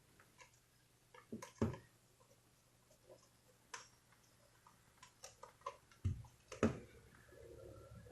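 Scattered light clicks and knocks of a plastic hairdryer housing being handled and fitted back together, with two heavier knocks about six seconds in. A steady hum begins to rise near the end.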